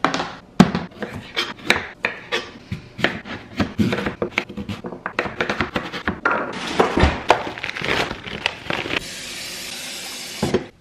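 Knife cutting sweet potato into cubes on a cutting board: a run of irregular knocks and taps, with the clatter of the board being set down. A steady hiss follows for about a second and a half near the end.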